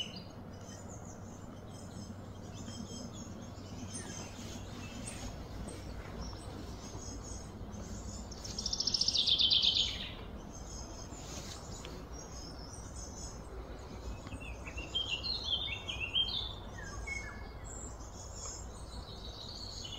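Birds chirping and calling over a steady low background hum, with the loudest moment a rapid trill about eight seconds in and a quick run of chirps around fifteen seconds.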